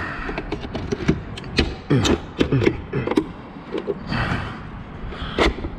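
Plastic back cap of a 2015–2017 Ford F-150 side mirror being pried and pulled off its clips by hand: a run of sharp clicks and knocks from the plastic housing as the clips on one side still hold.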